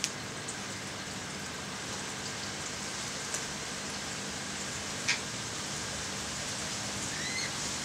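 Steady watery hiss of aquarium water circulating. Two faint clicks come through it, and a short rising bird chirp sounds near the end.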